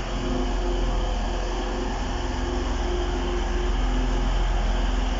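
TransPennine Express Class 185 diesel multiple unit, two units coupled, moving along the platform with its underfloor Cummins diesel engines running. It makes a steady low hum with a few held engine tones over it.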